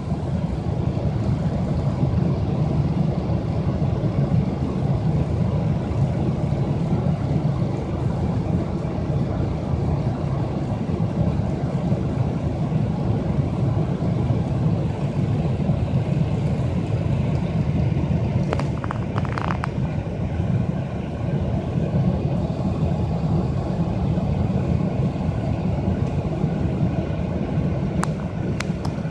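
Steady low rumble of a slow-moving car's engine and tyres heard from inside the cabin, with a brief clicking rattle about two-thirds of the way in.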